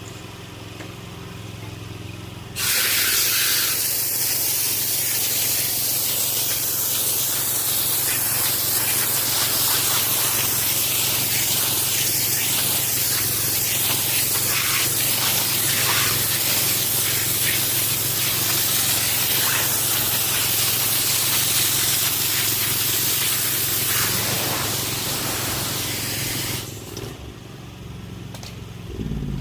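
Pressure washer running with a steady motor hum. About two and a half seconds in, the wand opens into a loud, even spray hiss that lasts most of the time, then cuts off near the end while the hum carries on.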